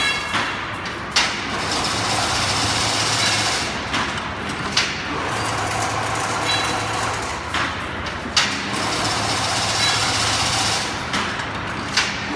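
Automatic chain link fence machine running: a steady mechanical whirring with a sharp clank about every three and a half seconds, four times, over a low hum that comes and goes.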